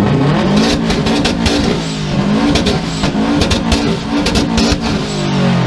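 A car engine revved hard again and again through a loud aftermarket exhaust, its pitch climbing and dropping several times, with a rapid string of sharp pops and crackles from the exhaust during the revs.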